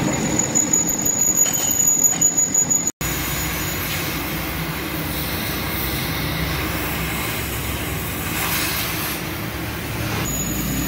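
Steady metalworking machine noise with a high, thin squeal. It breaks off abruptly about three seconds in and gives way to a rougher, steady machining noise.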